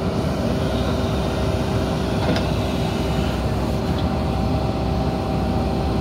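JCB 3DX backhoe loader's diesel engine running steadily under load while the backhoe arm digs into soil, with a couple of steady tones over the engine hum.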